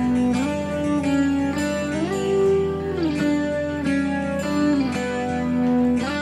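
Background music led by guitar, with notes that slide from one pitch to the next.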